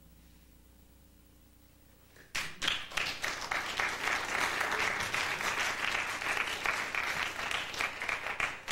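Live audience applauding, breaking out suddenly about two seconds in after quiet room tone and going on steadily.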